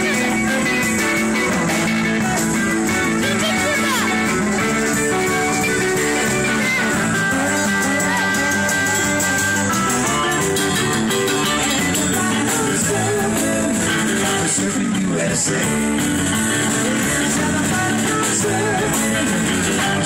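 Live band playing rock and roll on electric guitars, with singing.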